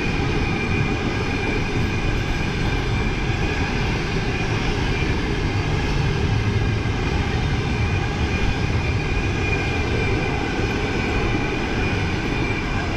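Passenger train coaches rolling past at speed: a steady rumble of wheels on rail with a high ringing tone held above it.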